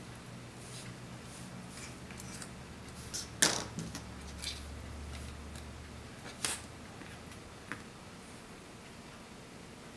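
Light clicks and taps of small repair tools and parts inside an iPad 2 as a flex cable connector is worked under tape. The loudest click comes about three and a half seconds in and another about six and a half seconds in, over a faint low hum.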